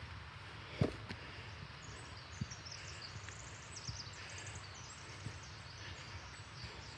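Footsteps on a forest trail, a soft thud about every second and a half, over a steady background hiss. A songbird's high, rapid trill of chirps runs through the middle few seconds.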